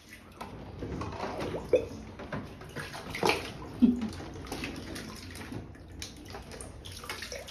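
Bathwater sloshing and splashing as toddlers play in a tub full of plastic clothes hangers, with a few sharp knocks standing out.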